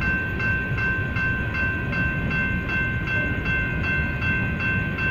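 BNSF coal train's hopper cars rolling past a grade crossing with a steady low rumble, while the crossing's warning bell rings on, about three strokes a second.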